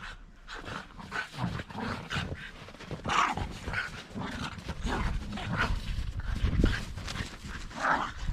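Shiba Inu making short whines and yips, one every second or so, over a low rumble.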